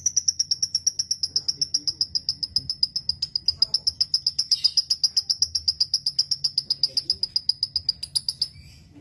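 Lovebird ngekek: a long unbroken run of rapid, high chirps, about nine a second, its pitch sinking slightly over some eight seconds before it stops abruptly.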